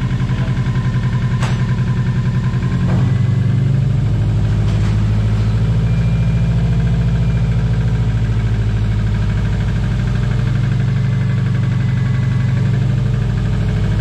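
Subaru EJ205 turbocharged 2.0-litre flat-four, a JDM unit newly swapped into a 2002–2005 WRX, idling steadily.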